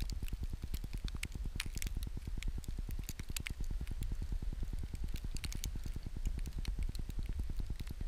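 Blizzard wind buffeting the microphone in a fast, even low pulsing, with scattered light ticks over it.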